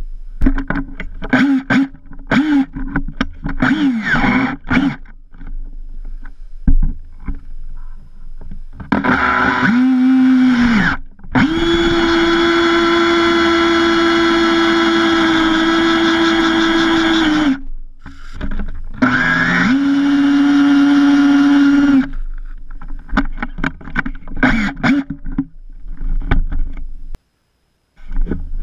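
Power drill motor heard from a camera mounted on the drill body. It whirs in short trigger blips that rise and fall in pitch, then runs steadily for about six seconds as the twist bit bores a hole into a wooden board, with more short runs and blips after that.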